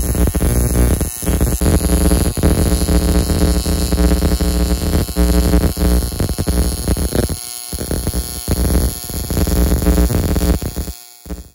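AC TIG welding arc on aluminum exhaust tubing: a loud, steady electrical buzz that drops out briefly about a second in and twice more later, then stops shortly before the end.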